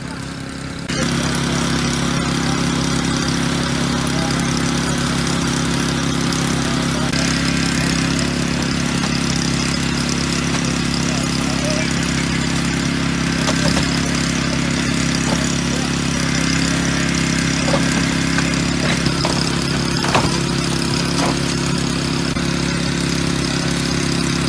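An engine running steadily at one speed, louder from about a second in, with a few short knocks over it later on.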